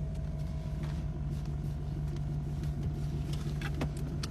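A steady low mechanical hum with a faint constant higher tone above it, and a few light clicks near the end.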